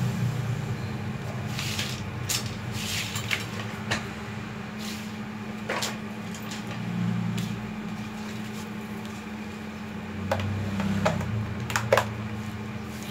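Knocks and clunks of a metal-cutting chop saw being shifted and set down on a hard floor, with its power cord being handled; a sharp pair of clicks near the end is the loudest. A steady low hum runs underneath.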